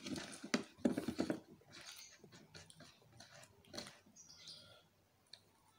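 Close-up chewing of fried cireng (tapioca fritters): irregular clicks and smacks of the mouth, busiest in the first second and a half, then sparser, fading out near the end.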